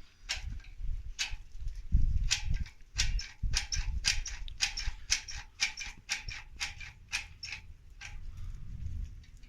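A run of sharp, irregular mechanical clicks, about three or four a second and thinning out near the end, over a low rumble.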